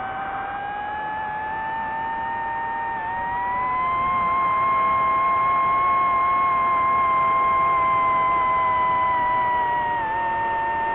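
Drone motors and propellers whining steadily. The pitch and loudness rise about three to four seconds in as the throttle increases, hold, then drop back near the end.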